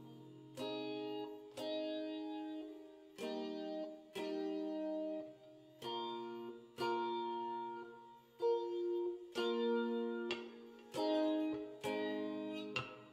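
Stratocaster-style electric guitar picking chords, struck about once a second, each chord ringing and fading before the next.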